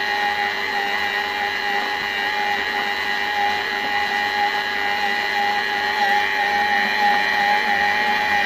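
Oberhof Breth C-34 planetary stand mixer running on its second speed, the motor whining steadily at a constant pitch while the dough hook kneads dough.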